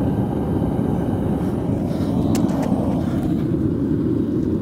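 Steady, low roar of the burner heating the crucible of molten salt, with a few faint ticks about halfway through.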